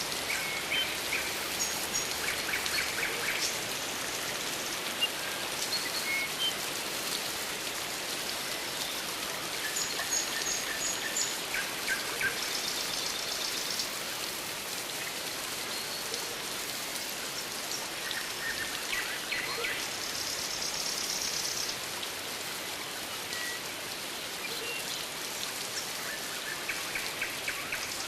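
Steady rain falling on rainforest foliage, a continuous hiss, with short trilling bird calls breaking in every several seconds.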